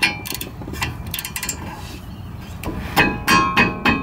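A metal hand tool clinking and knocking against a car's brake caliper mounting bracket as the bracket's lower bolt is undone: irregular metallic clinks with a short ring, louder and closer together about three seconds in.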